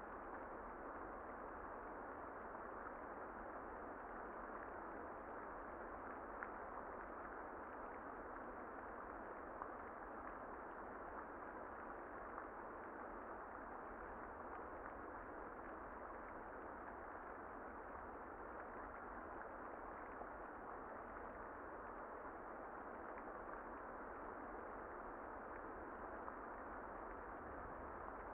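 Steady muffled rain: an even, dull hiss with no music audible, broken by a few faint ticks.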